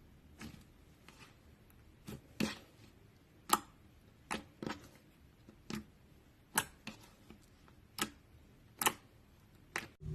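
Slime being squeezed and worked by hand, giving about a dozen sharp, irregular clicks and pops.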